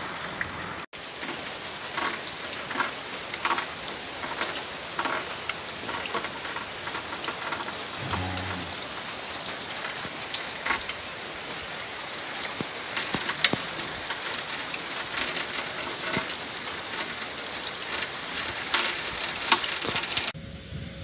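Heavy rain falling steadily, with many sharp individual drop hits standing out. The sound cuts out for an instant about a second in and becomes quieter near the end.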